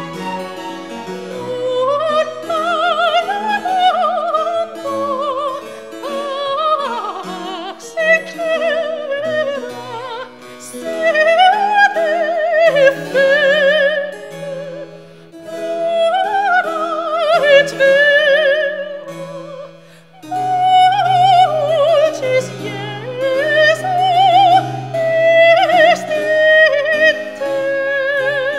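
Operatic soprano singing Baroque phrases with wide vibrato, accompanied by a small string ensemble and harpsichord holding chords under the voice, with brief pauses between phrases.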